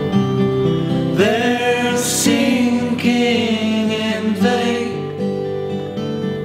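Acoustic guitars, a twelve-string among them, playing a slow strummed accompaniment, with a man singing over them from about a second in until about five seconds in.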